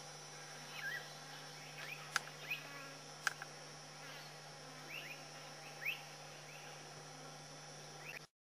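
Faint short rising chirps in quiet bush, scattered a second or two apart, over a low steady hum, with two light clicks.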